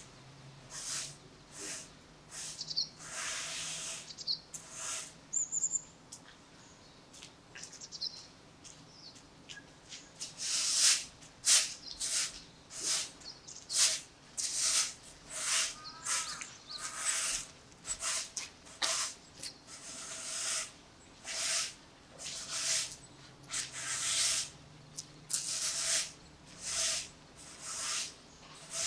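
Footsteps at an even walking pace, a short crunch about every three-quarters of a second, settling into a steady stride about a third of the way in. A few brief bird chirps sound in the first part.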